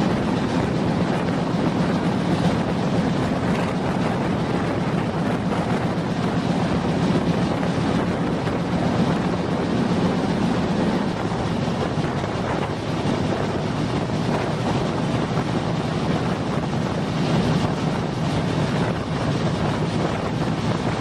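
Sundarban Express passenger train running, a continuous steady rumble with wind buffeting the microphone.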